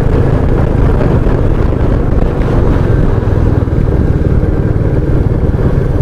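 Royal Enfield Meteor 350's single-cylinder engine running steadily as the motorcycle cruises along at road speed.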